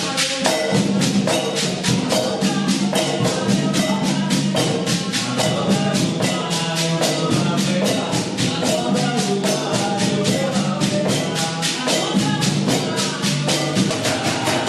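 Music: fast, even percussion strokes, about six a second, under a moving melody.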